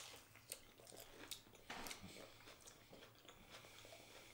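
Faint chewing of a crunchy battered onion ring, with a few crisp crunches in the first two seconds, then quieter chewing.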